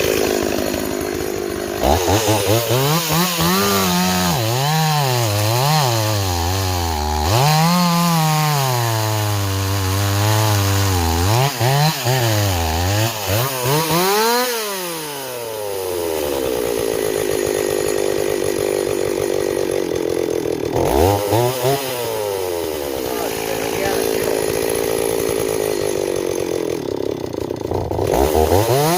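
Stihl 026 two-stroke chainsaw running with a freshly fitted replacement chain, revved up and down over and over, then held at a steady high speed for about ten seconds, as in a cut, with brief drops in revs near the end.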